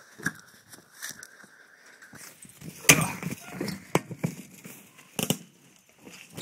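Irregular crunching and rustling of someone moving on foot over dry ground and vegetation, with a sharp knock about three seconds in and another about five seconds in.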